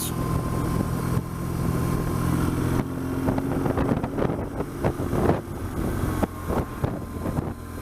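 BMW R1200GS's flat-twin boxer engine running steadily under way, with noise rushing over the microphone. The engine note shifts about three seconds in, and brief knocks come through in the second half.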